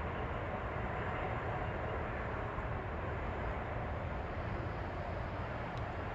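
Steady background noise that stays even throughout, heaviest in the low end, with no distinct events.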